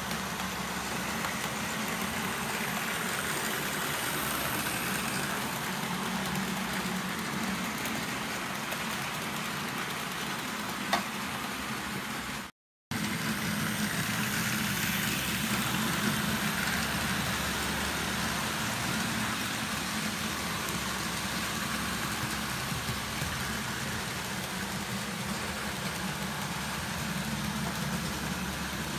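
OO-scale model train running on the layout: a steady whirring hum of the locomotive's motor and the wheels rolling on the track. One click about 11 seconds in, and the sound drops out for a moment near the middle.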